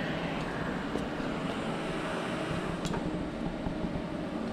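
Steady, even rumble and hiss with a few faint light clicks about one second and three seconds in.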